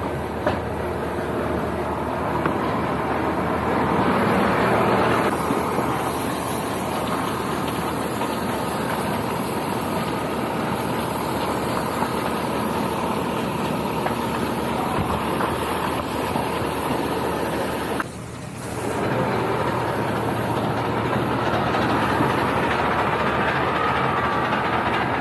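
Fire engine's engine running steadily, under a dense rushing noise. The sound dips briefly about three-quarters of the way through.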